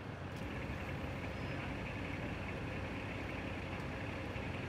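A fire engine idling at a steady low rumble, with an even hiss of street noise above it.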